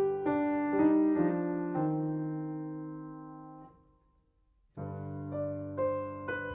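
Solo piano playing a slow piece: a few notes and chords are struck in the first two seconds and left to ring and die away into a brief silence, then the playing resumes about five seconds in.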